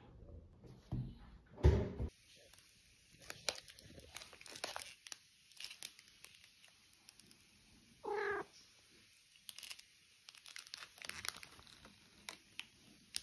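Cellophane wrapping of a flower bouquet crinkling and crackling in short bursts as a cat noses at it, with one short cat meow about eight seconds in. A single thump comes just before two seconds in.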